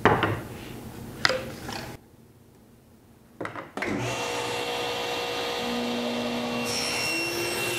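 A few light knocks of a thin walnut strip being laid against a table saw's rip fence. From about four seconds in, the table saw runs steadily, its tone shifting as the strip is pushed through to be ripped to width.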